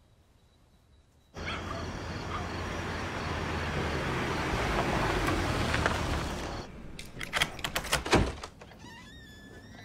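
Car driving up: a steady rush of engine and tyre noise with a low hum starts suddenly about a second and a half in and stops after about five seconds. Then comes a quick run of sharp clicks and thuds, followed by faint high wavering tones near the end.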